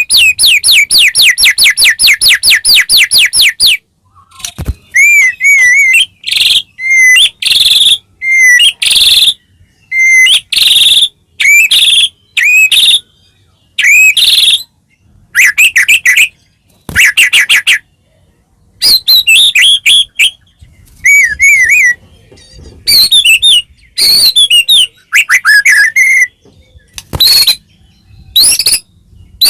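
White-rumped shama (murai batu) singing loudly: a rapid run of repeated notes for the first four seconds or so, then a long string of short, varied whistled phrases with brief pauses between them.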